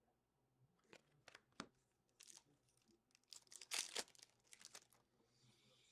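Faint crinkling and rustling of hockey card packs and cards being handled, with scattered small clicks and a louder crackle about four seconds in.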